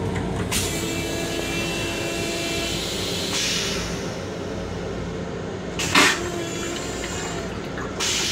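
Push-button flush of the stainless-steel toilet in a Long Island Rail Road M7 railcar: a hissing rush starts about half a second in, with a louder burst about three seconds in, and a short, sharp, loudest burst about six seconds in as the bowl empties. A steady low rumble of the train runs underneath.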